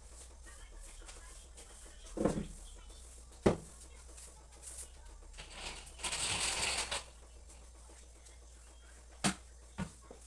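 Household cleaning sounds: a dull thump, then a sharp knock, about a second of rushing, scrubbing-like noise, and two short clicks near the end, all against quiet room tone.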